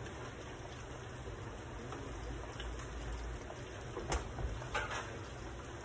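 Steady sizzle of food cooking in pans on a gas stove, plantain slices frying in oil and a shrimp-and-octopus stew simmering, with a few clicks of a wooden spoon against the skillet about four and five seconds in as the stew is stirred.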